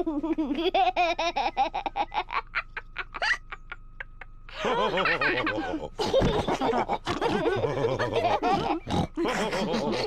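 Cartoon pig family laughing together in rapid bursts. The laughter tails off about two seconds in, then starts up again louder and with several voices about four and a half seconds in.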